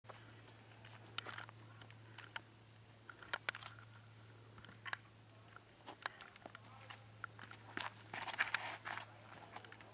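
Steady high-pitched drone of insects. Scattered scuffs of footsteps on a concrete tee pad, with a busier cluster of shuffling steps about eight seconds in as a disc golfer runs up and throws.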